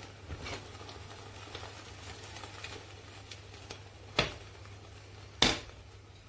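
Two sharp knocks about a second apart, each with a short ring, over a steady low hum and a few faint light ticks.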